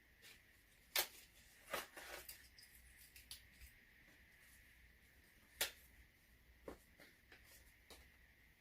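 Packaging and items being handled during a parcel unboxing: light rustles and small ticks, with two sharper clicks, one about a second in and one about five and a half seconds in.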